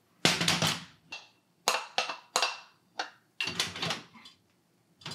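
Double-sided hot sandwich pan being knocked and scraped with a utensil to free a hot sandwich stuck inside: a run of sharp clacks and knocks, some with a brief metallic ring.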